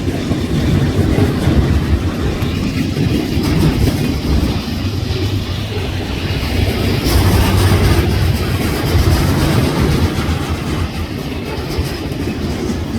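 A KCSM train rolling past, with a heavy low rumble and the wheels clacking over the rails. No horn is heard.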